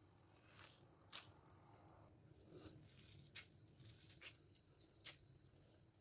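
Faint wet squishing of grated radish squeezed by hand to press out its water, with a few short soft crackles scattered through.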